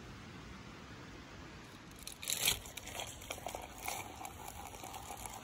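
Faint steady hiss, then from about two seconds in a burst of crinkling and rustling with many small irregular crackles, as of something being handled.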